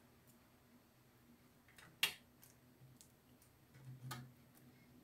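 Faint scattered clicks and taps from handling a piece of beadwork strung with plastic pearl beads and a small cutting tool, with one sharper click about two seconds in and a few soft thumps near the end.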